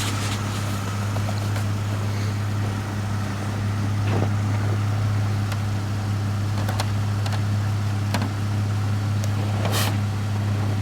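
A vehicle engine idling with a steady low hum, with a few faint clicks and a short hiss near the end.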